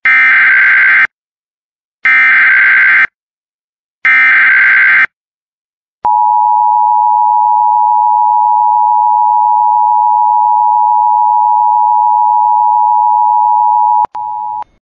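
Emergency Alert System SAME header: three bursts of shrill data tones, each about a second long and a second apart. They are followed by the EAS two-tone attention signal, a loud, steady dual tone held for about eight seconds. The tone breaks off near the end and returns briefly, quieter.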